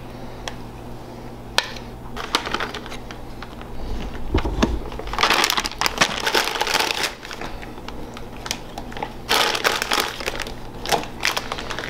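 Plastic food bags crinkling as shredded cheese and then shredded lettuce are shaken out onto a taco: two long bursts of rustling, with a few clicks and taps between.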